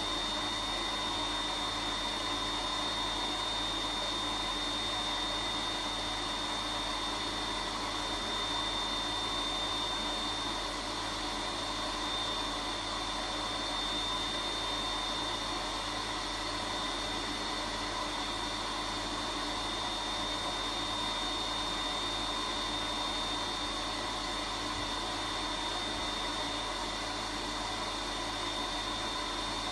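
Vacuum cleaner running steadily, its motor noise even and unbroken with a steady high whine.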